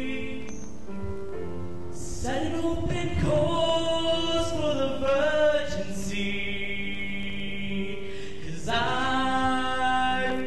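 High school show choir singing long held chords in harmony, the sound swelling louder about two seconds in and again near the end, with a male soloist on a handheld microphone.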